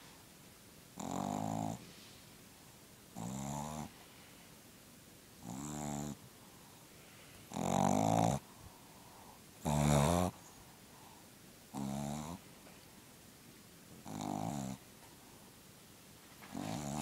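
A shih tzu snoring, with a buzzing snore about every two seconds, eight in all. The loudest two come just past the middle.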